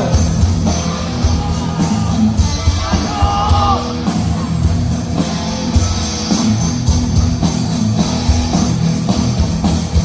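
Live heavy metal band playing loudly: pounding drum kit, distorted guitar and bass, with a vocalist's voice coming through about three to four seconds in.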